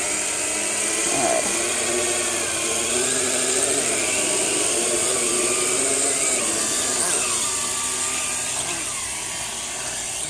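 DP Power Hawkeye 3 quadcopter's small electric motors and propellers whirring, their whine wavering up and down in pitch as the throttle changes. The whine eases a little near the end.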